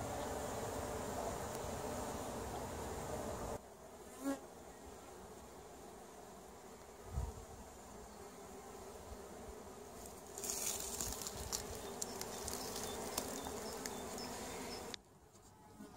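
Honeybees buzzing as they fly in and out of a hive entrance, a steady hum: a colony still active at the end of winter. The level drops suddenly a few seconds in and rises again past the middle, with a hiss and faint ticks over the later part.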